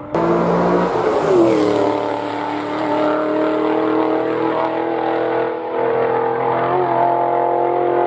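High-revving sports car engine passing close at speed. It comes in abruptly, drops in pitch as the car goes by, then holds a steady high note as it pulls away into the bends, with a brief dip past halfway.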